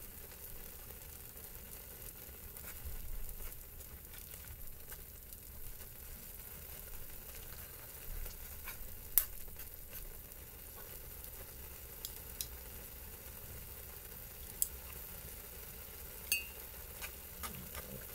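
Instant noodles cooking in a little water in a hot pan, with a steady sizzling hiss, while wooden chopsticks stir them. Several sharp clicks come from the chopsticks striking the pan.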